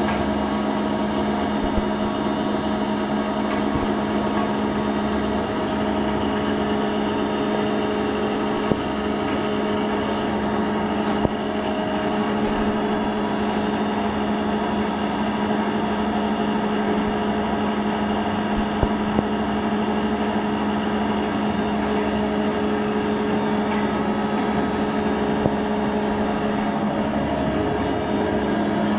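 CNC gantry drilling machine for steel plate running, a steady even hum with a few sharp clicks scattered through it.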